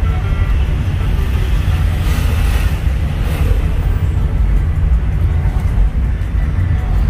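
Steady low rumble of a car's engine and tyres heard from inside the cabin while driving in traffic, with a brief swell of hiss about two seconds in.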